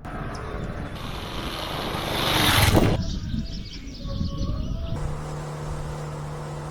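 Short spliced clips of a motorcycle ride: a rush of noise swelling to a peak and cutting off about three seconds in, a brief quieter stretch with a few thin tones, then a steady low motorcycle engine hum.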